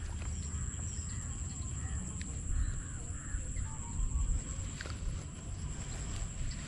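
Faint bird calls, caw-like, about two and a half seconds in, over a steady low rumble of outdoor noise on the microphone.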